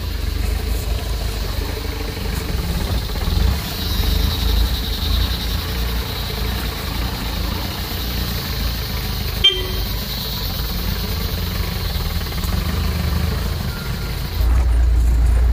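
Off-road vehicle driving over a rough track, heard from on board: a steady low engine and road rumble. There is one sharp knock about nine and a half seconds in, and the rumble gets louder near the end.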